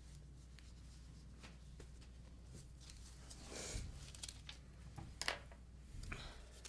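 Faint handling of paper pattern pieces and skin pieces on a tabletop: soft rustling and scattered light ticks, with a louder rustle about halfway through and a sharp tick soon after, over a steady low room hum.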